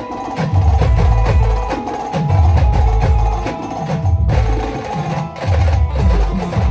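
A band plays a lively folk-pop medley. Heavy drum beats repeat about every second and a half under busy clicking percussion and a held, sustained melody line.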